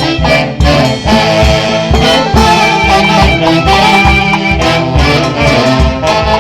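Peruvian folk orchestra playing, horns carrying the melody over a steady bass beat.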